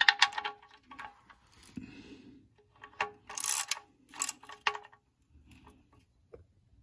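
Socket ratchet on an extension clicking in short bursts as it tightens an oil drain plug into the oil pan; it falls quiet about five seconds in.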